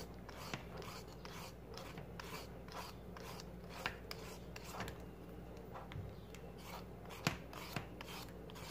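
Handheld vegetable peeler scraping the skin off a cucumber in repeated short strokes, with a sharper click about seven seconds in.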